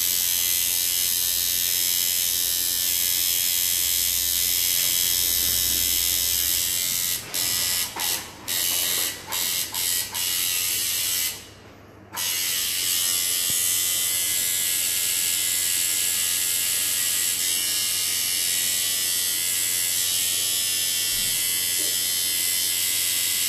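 Electric tattoo machine buzzing steadily while shading skin. It stops briefly several times in a row, cuts out for about a second in the middle while the skin is wiped, then runs on steadily.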